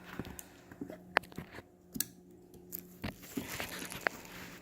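Small plastic figures and their packaging being handled on a table: scattered sharp clicks and taps with some rustling, over a faint steady hum.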